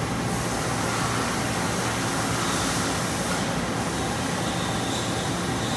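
Mori Seiki ZT1500YB CNC lathe cutting a part, giving a steady mechanical hiss and hum. A faint high whine comes in about halfway through and again near the end.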